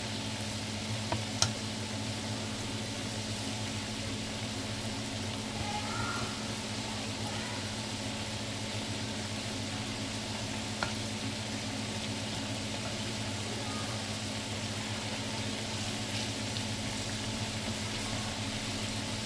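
Small whole goby fish deep-frying in a pan of oil, a steady even sizzle without popping spatters, since cornstarch has been stirred into the oil. A few light clicks sound about a second in and again near the middle as chopsticks touch the pan.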